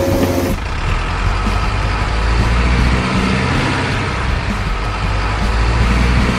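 A large truck engine running, its low rumble shifting up and down in pitch, over the hiss of shallow running water.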